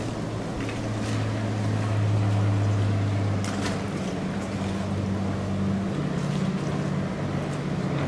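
Motorboat engine running steadily, its pitch shifting slightly about six seconds in.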